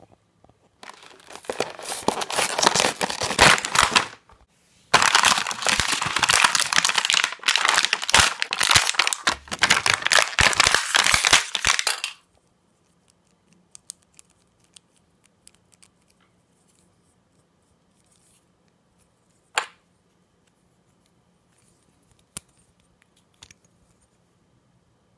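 Plastic toy packaging being torn and crinkled open in two long stretches of dense rustling, one in the first few seconds and one from about five to twelve seconds in. After that it is mostly quiet, with a few light clicks of the Beyblade's plastic and metal parts being handled.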